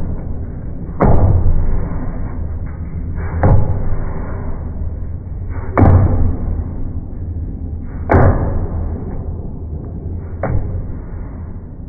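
A factory machine working in a regular cycle: five heavy impacts about two and a half seconds apart over a steady low hum.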